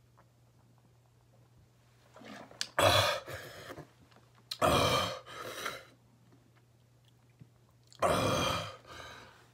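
A man gasping for breath three times, each a loud rasping breath followed by a weaker one, winded from chugging a large amount of milk without stopping.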